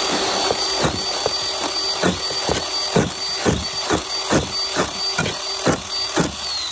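Ryobi electric chainsaw with a 10-inch bar running with a steady high whine while its chain shreds a head of iceberg lettuce, with about two sharp hits a second as the bar chops down. The whine falls near the end.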